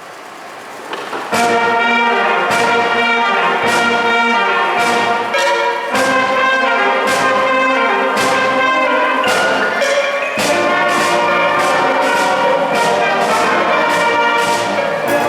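School wind band of brass and woodwinds playing an upbeat tune, coming in together about a second in, with drum and cymbal hits on a steady beat.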